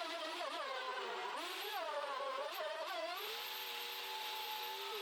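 Router motor on a router table whining as it cuts grooves in wood, its pitch dipping and recovering under load several times, then holding steady for the last couple of seconds.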